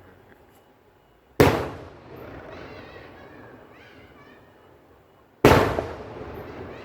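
Two loud firework bangs about four seconds apart, each dying away over about half a second.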